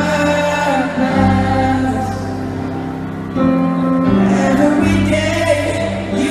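Live pop ballad at a concert: a male lead vocal over sustained keyboard chords, with the audience singing along.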